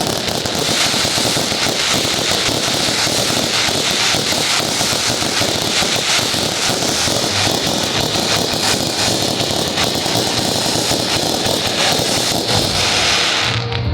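Dense fireworks barrage: many rapid bursts and crackles merging into a continuous roar, which drops away near the end.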